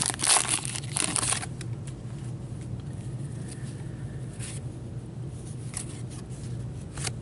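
Foil trading-card pack wrapper crinkling as it is torn open by hand, for about the first second and a half. After that come a few soft ticks of cards sliding and being shuffled through in gloved hands.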